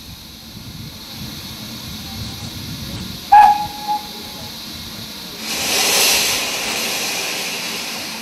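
Steam locomotive whistle on a BR Standard Class 9F 2-10-0 giving a short, loud toot about three seconds in, with a brief second toot just after. A burst of steam hiss then swells and slowly dies away.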